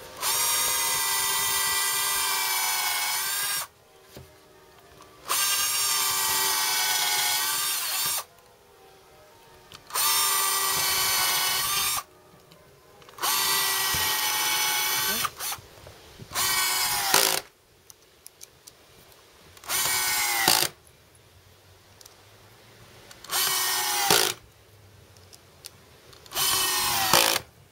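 Power drill boring countersunk pilot holes in a pine gate brace and driving wood screws into it. It runs in about eight short bursts of one to three seconds each, with pauses between. The later bursts are shorter, and several end in a brief louder spike.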